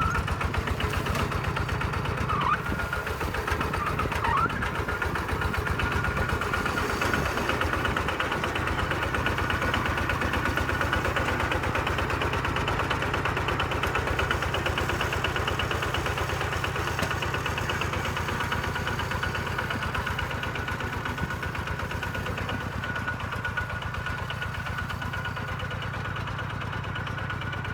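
Kubota two-wheel tractor's single-cylinder diesel engine running steadily with a fast, even chugging and a thin steady whine above it.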